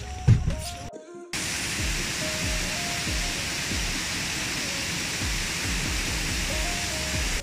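Waterfall water rushing steadily, cutting in abruptly about a second in after a brief dropout, with light background music over it.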